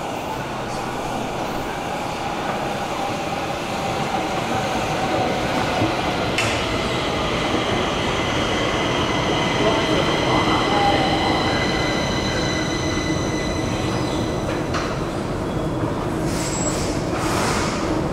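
Stockholm metro train running in the station, a steady rumble with a high multi-tone squeal that starts suddenly about six seconds in and stops near fifteen seconds.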